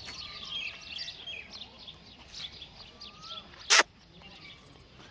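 Small birds chirping repeatedly, many short high chirps, with one short, sharp, loud noise a little past halfway through.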